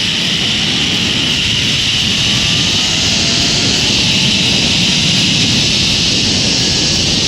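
Zip line trolley running along the steel cable during a ride, a loud steady high whir mixed with wind rushing past, and a faint whine slowly rising in pitch as speed builds.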